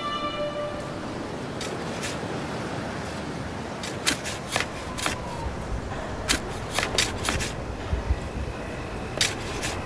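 The last sustained violin notes fade out within the first second. A steady wind-like hiss follows, and from about four seconds in come irregular clusters of sharp clicks and rattles, with a brief falling creak in the middle.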